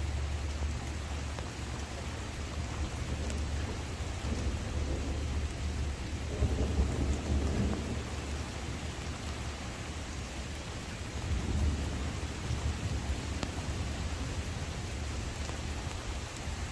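Thunder rumbling over steady rain during a thunderstorm. The rumble swells about six seconds in and again a few seconds later.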